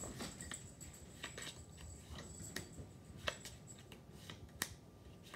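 Playing cards handled one at a time and laid on a hard countertop: scattered soft clicks and snaps, a few sharper ones, as cards are flipped face up and tucked under the small deck.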